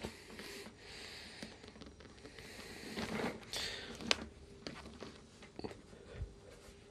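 Fingers scratching and tapping on the back of a gaming chair, an uneven scraping rustle with small sharp knocks, the loudest about four seconds in.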